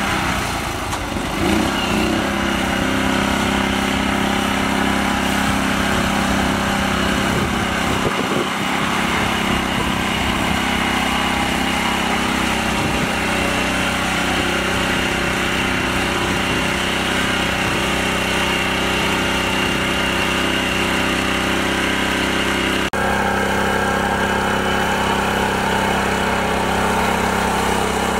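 Mini tractor engine running steadily under load as the tractor works its wheels through deep mud, with a brief dropout about two-thirds of the way through.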